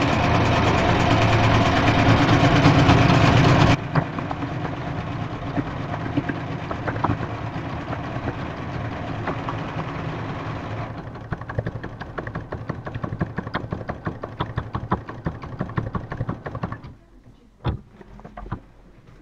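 Sewing machine running and stitching through paper, with a fast, even patter of needle strokes. It is loudest for the first four seconds, then runs on a little softer and stops near the end.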